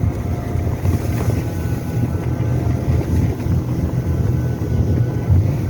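Snowmobile engine running steadily while riding, with wind buffeting the microphone.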